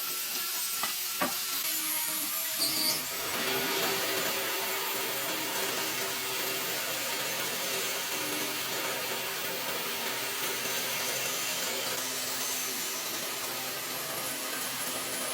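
A woodworking power tool running steadily, starting about three seconds in after a few light knocks.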